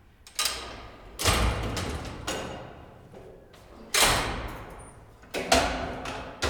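Elevator doors and mechanism making a series of sudden clunks and thuds, about five of them, each one ringing on and fading over roughly a second.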